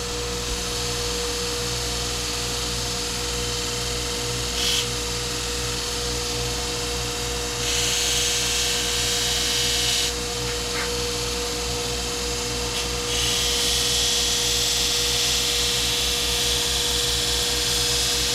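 Bucktool 2x42 benchtop belt grinder running with a steady hum while steel axe edges are pressed to the abrasive belt. There is a brief touch about five seconds in, a hissing grind of about two and a half seconds near the middle, and a longer grind of about five seconds toward the end.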